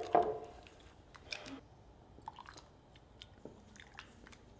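A metal ladle knocks against a stainless steel saucepan with a short ring at the start, followed by quiet scattered clinks and a soft splash as soup is ladled into a ceramic bowl.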